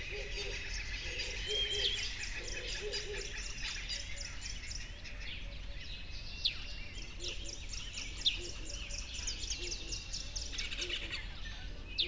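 Many small birds chirping and twittering in quick trills, with soft low two-note calls repeating underneath in the first half. Two sharper single bird notes stand out about midway through.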